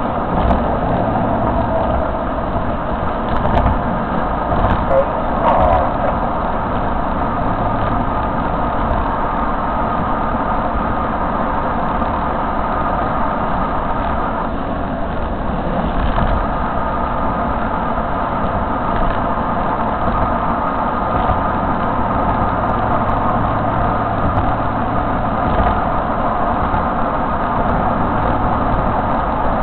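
Steady road and engine noise heard inside a car travelling at highway speed.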